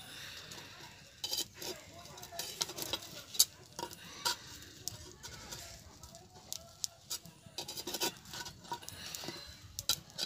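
A metal blade scraping and knocking against a clay pitha pan while domed lids are set down over the cakes, giving a string of sharp, irregular clicks and scrapes, the loudest about three and a half seconds in.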